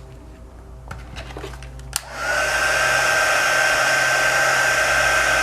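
Heat gun switched on with a click about two seconds in, then blowing hot air steadily with a high whine, heating the adhesive under the cracked iPhone 6 front glass. A few light handling clicks come before it.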